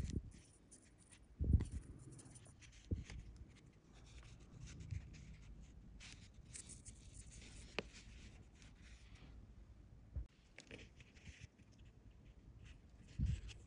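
Faint rubbing and rustling of fingers handling fishing line, with a few soft low thumps spread through.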